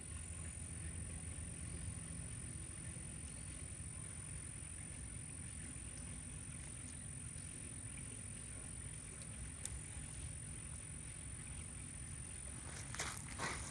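Steady low outdoor background rumble with a faint, constant high whine. Two brief rustling scrapes come close together near the end.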